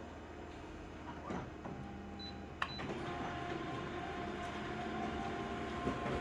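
Photocopier making an enlarged copy: a few light knocks, a sharp click a little over two and a half seconds in, then the machine runs louder with a steady hum and whine.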